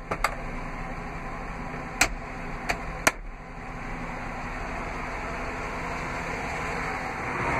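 Short sharp plastic clicks from the truck's pull-out dash cup holder being handled and pushed shut, four clicks in the first three seconds, over steady background noise.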